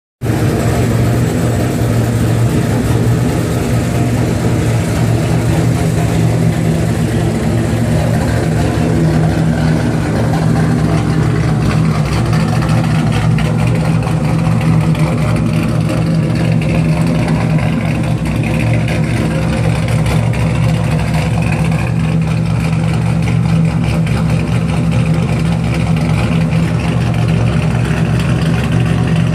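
Chevrolet Camaro's engine and loud exhaust running with a steady drone, as when cruising along, holding an even pitch.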